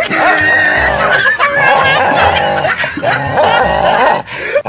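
Background music with a steady beat, over a dog snarling at its own reflection in a mirror.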